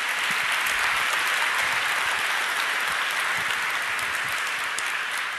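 A large auditorium audience applauding steadily, easing off slightly near the end.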